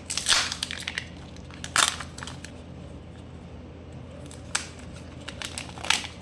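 Plastic Kinder Joy egg being opened by hand: a few short crackles and rustles of plastic and foil as the shell halves are pulled apart, the foil seal is peeled back and the toy capsule is opened, the loudest burst right at the start.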